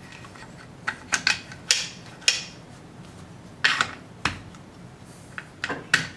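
Metal rifle parts of a CZ 805 Bren upper receiver clicking and scraping as they are fitted together by hand: a series of separate sharp clicks and short slides, some in quick clusters.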